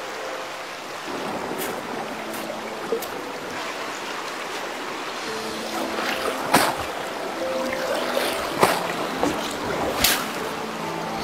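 Shallow stream rushing over stones while a bundle of palm fibre is dunked and swished in the water. The water pours and sprays off the fibre as it is lifted out, with three loud splashes in the second half.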